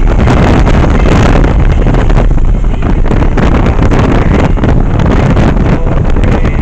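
Heavy wind buffeting on the microphone over the running of a Yamaha 1100 motorcycle while riding. The sound is loud and steady, with a deep rumble.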